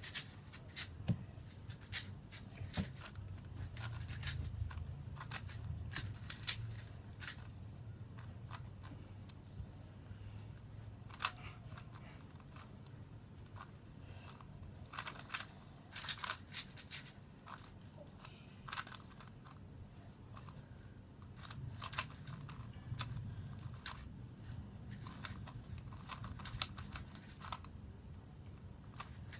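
X-Man Tornado V2 M magnetic 3x3 speedcube being turned fast during a solve: irregular flurries of clicking layer turns, broken by short pauses.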